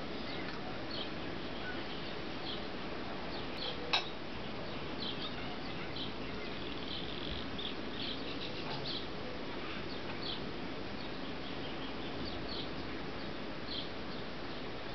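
Small birds chirping in short high calls every second or so over a steady hiss of distant surf, with a single sharp clink about four seconds in.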